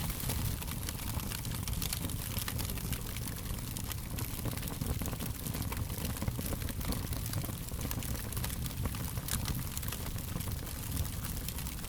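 Fire crackling: frequent sharp pops and snaps scattered over a low, steady rumble.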